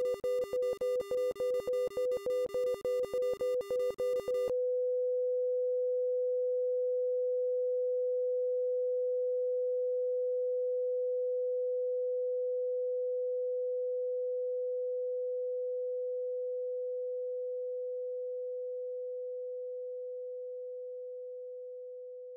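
Hospital heart monitor beeping rapidly, about three beeps a second, then about four seconds in switching to one continuous flatline tone that slowly fades: the signal that the heart has stopped.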